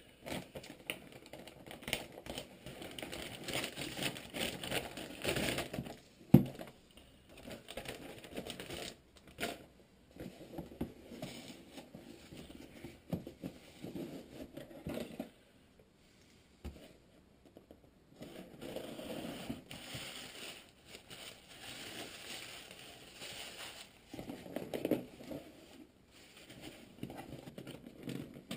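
Plastic shipping mailer crinkling and rustling as it is opened by hand, then a cardboard box being handled and its flaps opened, with a sharp knock about six seconds in.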